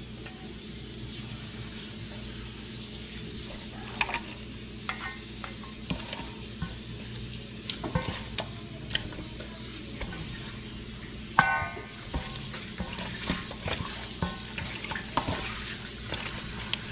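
Hands rubbing salt into raw fish pieces in a stainless steel bowl: wet handling noise with scattered soft clicks and knocks against the bowl, and one sharp metallic clink a little past the middle.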